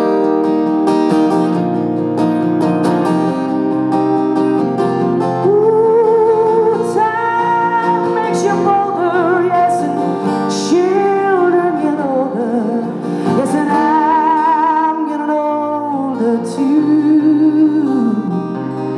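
A woman singing live over a strummed acoustic guitar. The guitar plays alone for the first five seconds or so, then she comes in with long held notes sung with a wide vibrato.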